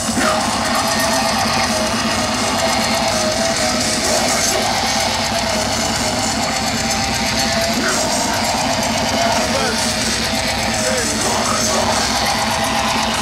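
Loud heavy rock music with electric guitar, playing steadily.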